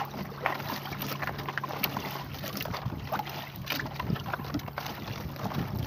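Fishing net hauled in by hand over the side of a small boat: water splashing and dripping, wet net and line scraping on the gunwale in many short irregular clicks and knocks, over a steady low hum.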